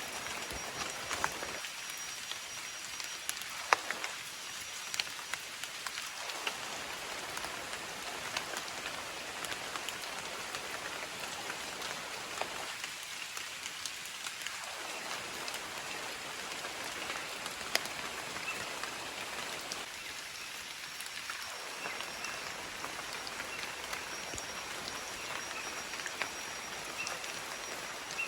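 Rain falling steadily: a dense, even hiss with sharp taps of individual drops landing close by.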